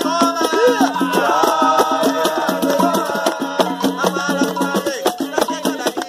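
An atabaque hand drum beaten in a quick, steady rhythm under several voices singing an Umbanda ponto (chant) together.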